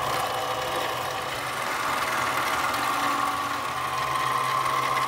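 Central Machinery 7x12 benchtop mini lathe running steadily, its motor hum and whine constant, while a drill in the tailstock chuck is fed into a spinning steel rod to bore it out.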